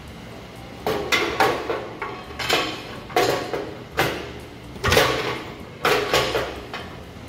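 A series of about eight irregular metallic clanks and knocks, each ringing briefly, as metal parts and tools are handled on a tractor engine.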